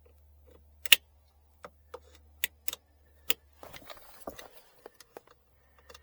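Sharp plastic clicks and clacks as trim clips and a plastic interior access panel are handled and pushed into place, in about half a dozen separate snaps. The loudest comes about a second in, and a stretch of rustling and rattling follows from about halfway.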